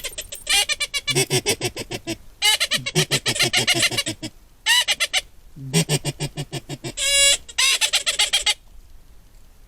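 Rapid runs of duck quacking, in about six bursts of quick repeated notes with short pauses between, ending shortly before the end.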